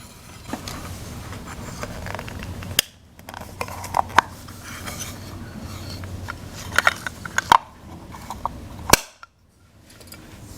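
Small plastic toy playset pieces being handled: scattered light clicks and taps, with a few sharper clicks, the sharpest about nine seconds in.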